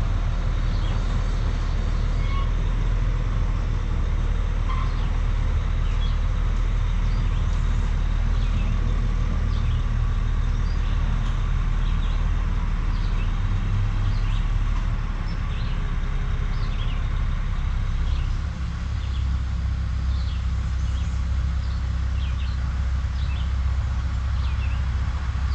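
Heavy truck's diesel engine running with a steady low rumble, which shifts in pitch about fifteen seconds in and again a few seconds later.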